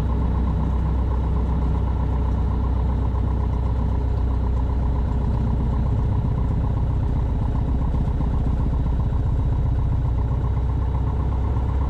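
Cessna 150's four-cylinder Continental O-200 engine and propeller running at low power, a steady, even drone heard from inside the cabin as the plane taxis.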